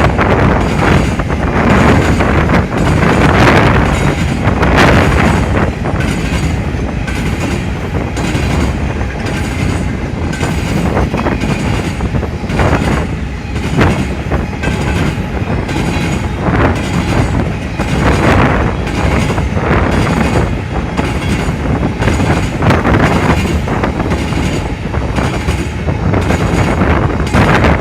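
Empty grain hopper cars of a freight train rolling past: loud, continuous rumble of steel wheels on rail with irregular clicks and clanks as the wheels cross rail joints.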